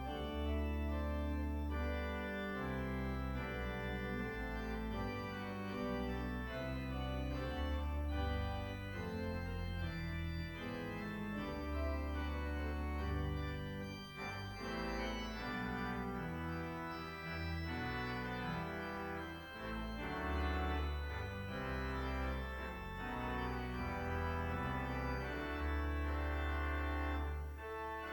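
Organ playing slow, sustained chords over deep held bass notes.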